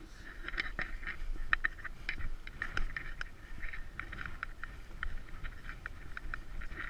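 Boots crunching through snow, short irregular crunches a few per second, over a steady low rumble.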